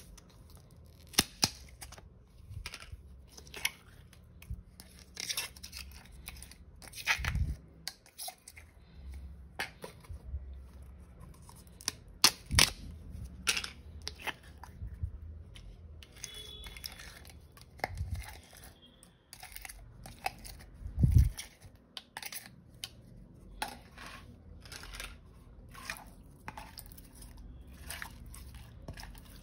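Thin plastic slime cup and its snap-on lid being pried apart and squeezed, giving irregular clicks and crackles, with sticky slime tearing and squelching as it is pressed out into a metal pot. A few duller thumps stand out among the clicks.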